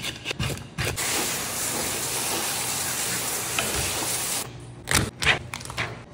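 Water sprayed from a hand-held hose nozzle onto a lionfish on a plastic cutting board, rinsing it: a steady hiss that starts about a second in and stops suddenly about four and a half seconds in. Knocks and clatter from handling the fish and board come before and after the spray.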